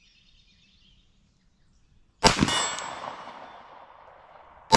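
Two shots from a 9mm Glock 26 Gen 5 pistol, about two and a half seconds apart, the second near the end. Each is followed by a hit steel target ringing and slowly fading.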